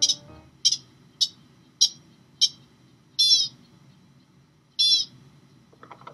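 American pika giving a long call, the call typically made by males. It is a run of short, high, squeaky notes a little over half a second apart. Near the end the pace slows into two longer, descending notes.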